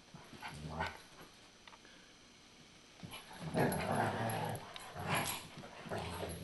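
Two canines growling during rough play: a short growl about half a second in, then a long bout of louder growling from about three seconds on, with a further burst near the end. The growls are play growls, not aggression.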